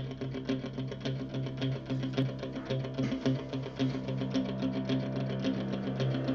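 Music that starts abruptly, with steady sustained low notes under a quick, even run of plucked notes.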